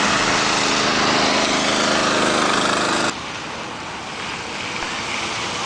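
Car engine running, with tyre and road hiss on a flooded street. About three seconds in it cuts off abruptly to a quieter, steady outdoor rushing noise.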